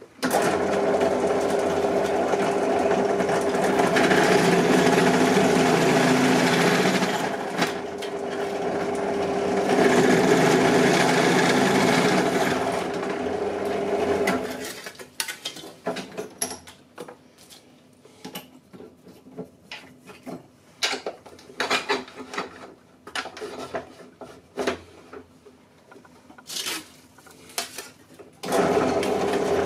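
Benchtop drill press running with a steady motor hum while drilling holes in a thin plate, the noise growing louder twice. The motor stops about halfway, leaving scattered clicks and knocks as the plate and vise are moved, and starts again near the end.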